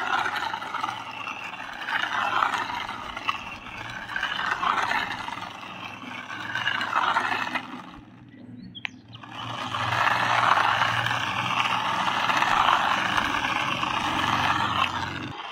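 Battery-powered toy remote-control car running over rough bare ground: its small electric motor whirring and plastic wheels scraping on the grit, swelling and easing every couple of seconds, with a brief lull about eight seconds in before it runs on steadily.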